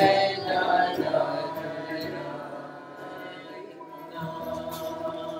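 Voices singing a Jewish liturgical song, holding a long final chord that slowly fades.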